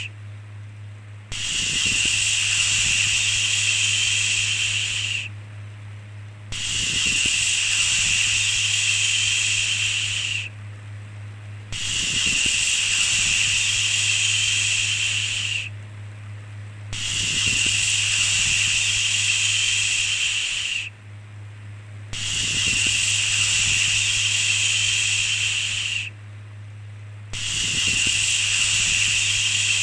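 A long 'shhh' shushing sound, repeated six times at an even pace of about one every five seconds, each lasting about four seconds with a short gap between, over a steady low hum.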